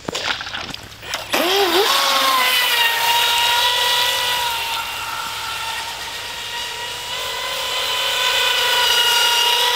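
Atomik Barbwire RC speed boat's electric motor winding up about a second in, then holding a high, steady whine at speed over a hiss of spray, after a brief knock as the boat is set on the water.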